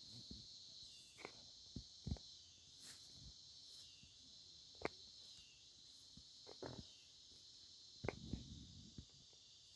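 Faint, steady high-pitched hiss with about a dozen soft taps and thumps scattered at irregular times.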